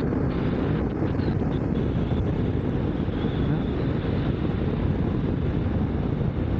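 Motorcycle riding at a steady road speed: a dense, even rush of wind and engine noise that does not change.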